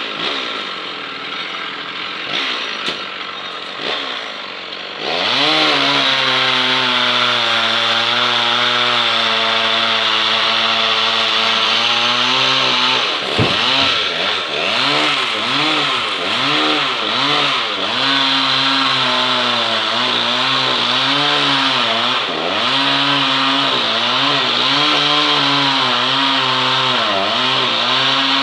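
Chainsaw cutting into a tree: it runs more quietly for the first five seconds, then goes to full throttle, and its pitch dips and recovers again and again as the chain bites into the wood.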